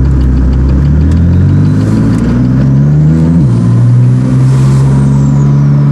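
Heavily tuned twin-turbo BMW engine with two Garrett G25 turbochargers accelerating hard. The engine pitch climbs for about three and a half seconds, drops sharply at an upshift, then pulls on steadily. A faint high whistle rises and falls above it.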